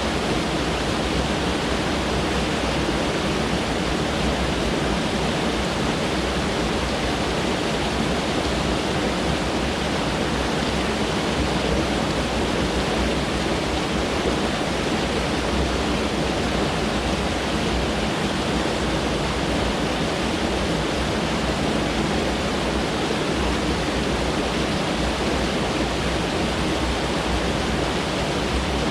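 Mountain stream rushing over rocks: a steady, unbroken rush of water.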